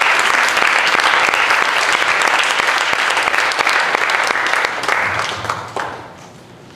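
Church congregation applauding, a dense clatter of many hands clapping that dies away about five to six seconds in.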